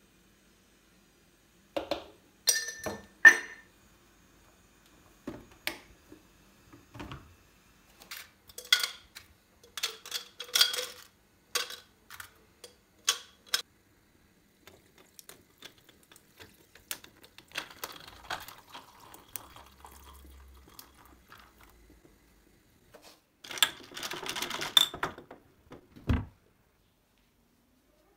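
Dishes, glassware and cutlery clinking and knocking in a string of separate taps, with a short run of liquid being poured near the end.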